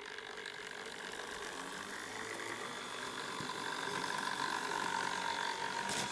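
Model railway Sprinter railcar running past on the track, its electric motor whining and growing louder as it nears, with a click near the end. The new model's motor is noisy while it is still being run in.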